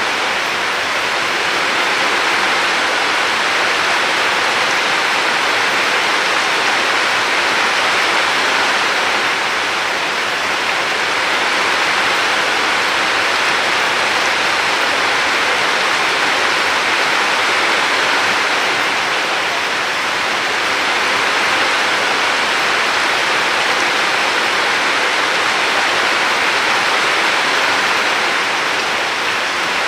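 River water flowing steadily: a continuous, even rushing.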